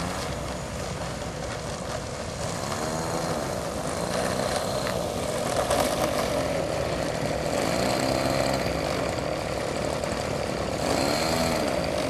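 Small gas engine of a Red Baron-style RC model airplane running as it sits and taxis on the runway, its propeller spinning. The engine's pitch swells and dips several times, and it grows louder a couple of seconds in.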